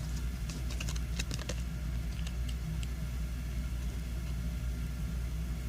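Steady low hum with scattered faint light clicks, most of them in the first three seconds, as shiny trading cards are handled and flipped through by hand.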